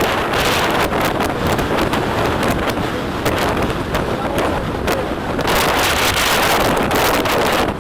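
Strong wind buffeting the camera's microphone: loud, continuous rushing with rapid crackling gusts, swelling in the second half.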